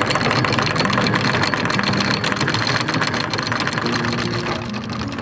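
Electric anchor windlass hauling in anchor chain: its motor runs steadily while the chain links rattle over the gypsy as the anchor comes up.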